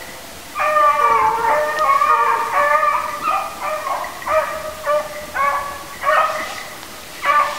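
Pack of rabbit-hunting hounds baying in long, drawn-out bawls, voices overlapping and barely pausing: the dogs are giving tongue while running a rabbit's scent trail.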